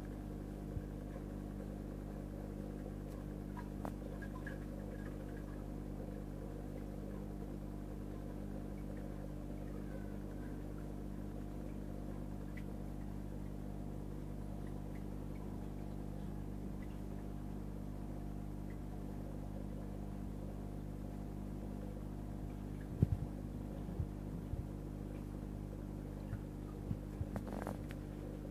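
Steady electric hum of running marine aquarium pumps, holding several constant low tones. A few sharp clicks come about three-quarters of the way through and again just before the end.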